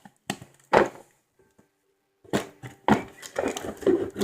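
Handling noise: two sharp knocks, a short pause, then a stretch of clattering and rustling as objects are moved about and rummaged through.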